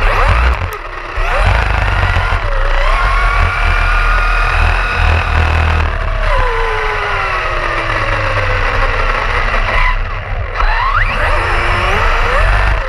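Brushless electric motor and drivetrain of an Arrma Fazon 6S RC car, heard from a camera mounted on the car, whining at speed with a steady low rumble of wind and vibration. The whine falls away around 6 s, dips briefly about a second in and again near 10 s, then rises sharply as the car speeds up again.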